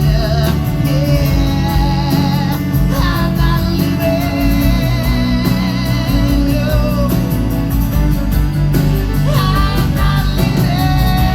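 Live rock band playing a song, with guitars and a steady beat, and a wavering sung or played melody line over it but no words.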